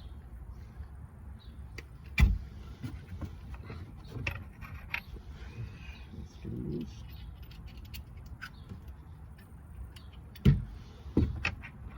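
Metal spanners clinking as they are picked through and tried on a nut, with a sharp clink about two seconds in and two more near the end.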